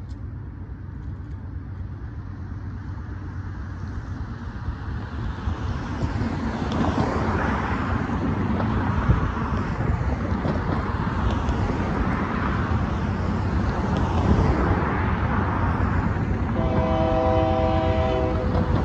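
Cars driving over the crossing, with tyre and engine noise building. About two seconds before the end, a locomotive air horn sounds one held chord for about two seconds as the freight train approaches.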